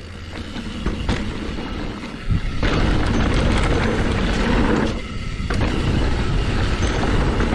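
Mountain bike riding down a dirt trail, with tyre and trail noise and wind buffeting the body-mounted action camera's microphone. It builds over the first couple of seconds and turns loud from about two and a half seconds in, easing briefly near the middle.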